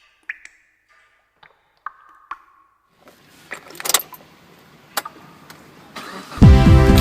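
A few scattered water-drop plinks, then a faint hiss with sharp clicks building up. About six seconds in, loud electronic music with a steady beat starts.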